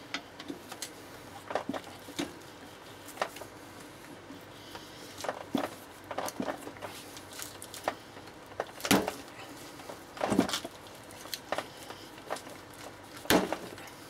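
A long screwdriver levering and scraping in the saw cut of a lightning arrester's rubber-and-resin housing, giving irregular clicks, scrapes and creaks as the tough casing is prised apart. Three louder cracks come in the second half.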